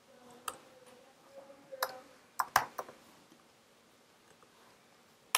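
Scattered keystrokes on a computer keyboard, a handful of clicks in the first three seconds, a pause, then one more at the very end.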